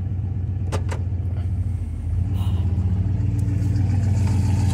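1995 Ford F-150's engine idling steadily, heard from inside the cab, with two sharp clicks about a second in. A little after two seconds in, the engine note changes and gets slightly louder.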